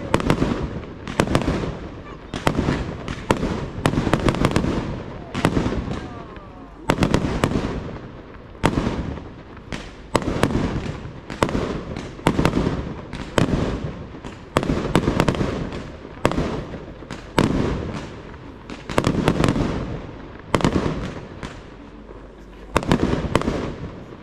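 Aerial fireworks display: shells bursting in quick succession, a sharp bang about every second, each fading away in a rumble.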